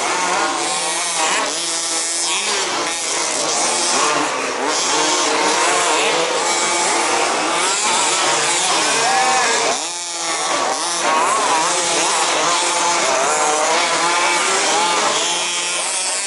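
Several 1/5-scale RC off-road race cars running together, their small two-stroke petrol engines revving up and down over one another as they race.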